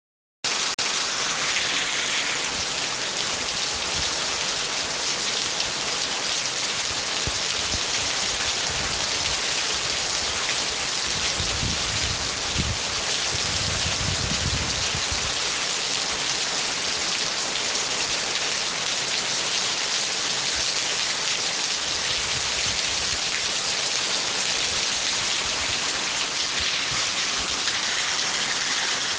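Steady, heavy rain falling, an even hiss of dense drops, with a low rumble swelling from about nine to fifteen seconds in.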